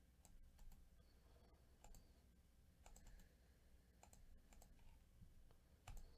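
Faint computer mouse clicks, a scattering of short sharp clicks with a slightly louder one near the end.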